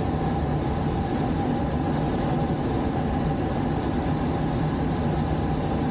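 Steady drone of the tow plane's engine heard from inside a glider cockpit on aerotow, mixed with the rush of air over the canopy.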